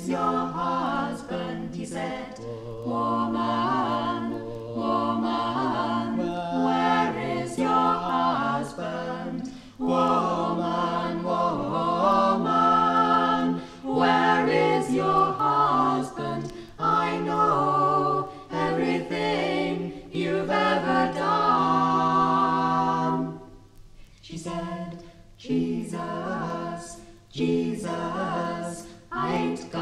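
Mixed vocal group singing a traditional gospel song a cappella in close harmony, with several voices holding sustained notes and a short break in the phrase about three-quarters of the way through.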